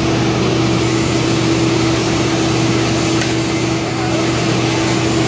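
Steady machine drone with a constant low hum, unchanged whether or not the arc is struck.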